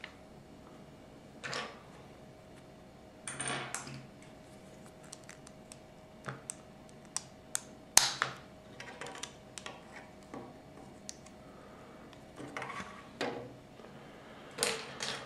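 Plastic Lego bricks and plates being handled and pressed together: scattered sharp clicks, the loudest about eight seconds in, with a few short bursts of rustling.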